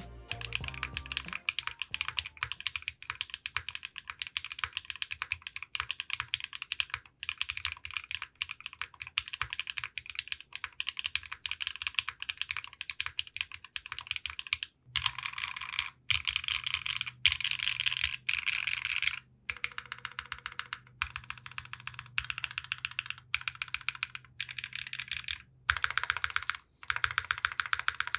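Steady fast typing on a KBDFans Boop Redux custom mechanical keyboard with an aluminum plate, no foams, factory-lubed Neo White switches and Keykobo Vibrato keycaps: a rapid run of keystroke clacks leaning to the deeper side of clacky, broken by a few short pauses.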